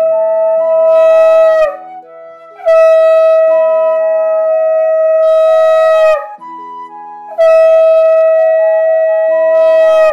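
Conch shell (shankha) blown for puja in long, loud, steady blasts: one blast ends about two seconds in, then two more follow, each three to four seconds long and opening with a short slide down in pitch. A soft stepped melody plays in the pauses between blasts.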